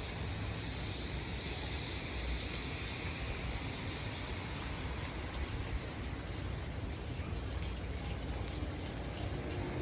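Steady rain falling, an even hiss of water that holds without a break.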